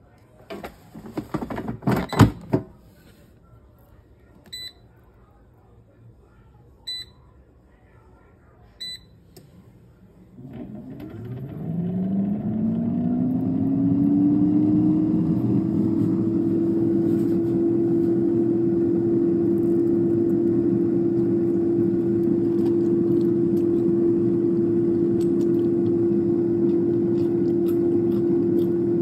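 Cosori air fryer being started: a clatter as the basket is handled and pushed in, three short beeps from the touch panel, then about ten seconds in its fan motor spins up, the whine rising in pitch and settling into a steady hum of circulating air.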